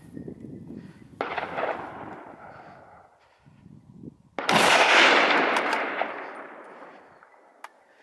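Two gunshots about three seconds apart during a hunt for wild boar, the second much louder. Each shot rolls on in a long echo that slowly fades.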